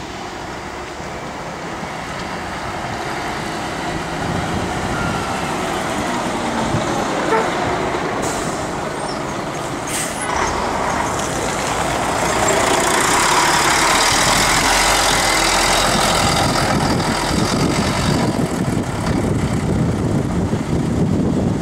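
Diesel city bus engine passing close and pulling away, getting louder as it goes by, with a brief hiss of air about halfway through.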